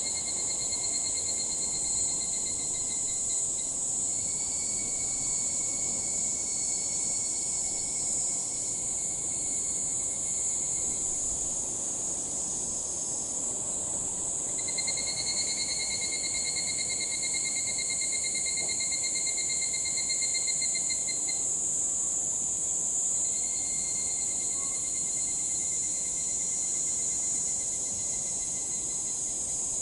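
Higurashi (evening cicadas) calling: four long, fast-pulsing pitched phrases of several seconds each, one after another with short gaps, over a steady high-pitched insect drone.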